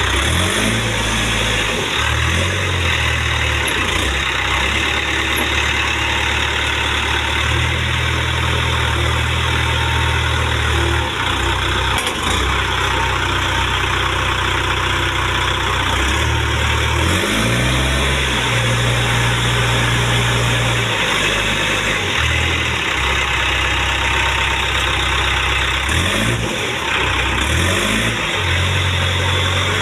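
Diesel engine of a Case 770 NXE backhoe loader running steadily, its speed rising and falling a few times, with short revs about a second in, around the middle and near the end.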